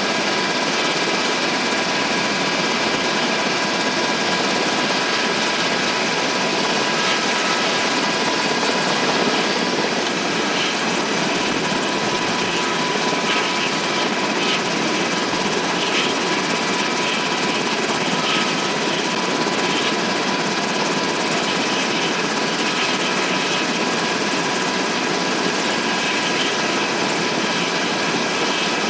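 UH-60 Black Hawk helicopter running on the ground with its main rotor turning: a steady, loud turbine and rotor roar with a constant high whine.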